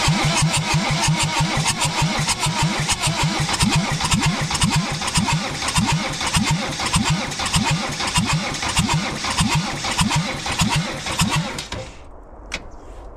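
Land Rover 200Tdi four-cylinder diesel cranking on its starter motor with no exhaust fitted, turning over in an even rhythm of compression strokes without catching, then stopping after about twelve seconds. The owner thinks its valve seats are leaking a little.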